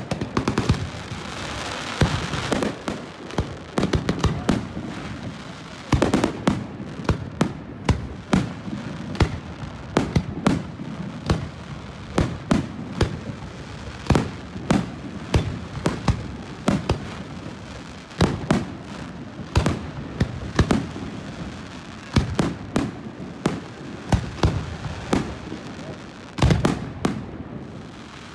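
Aerial fireworks shells bursting in a continuous barrage of sharp bangs, several a second, with no let-up.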